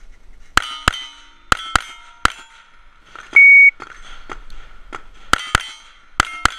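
A string of five quick pistol shots, each followed by the ring of a steel target plate. A shot timer's electronic start beep comes about three and a half seconds in, followed by four more quick shots with steel ringing.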